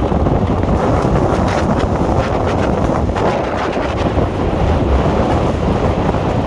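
Loud wind buffeting the microphone: a steady rushing rumble with irregular crackle.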